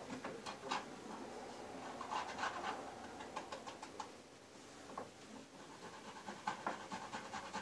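Boiled potato being grated on a box grater: repeated scraping strokes against the grater's blades, coming in irregular runs.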